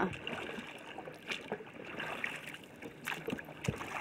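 Water splashing and lapping around a small dinghy as it comes ashore, with a few scattered knocks, mostly in the second half.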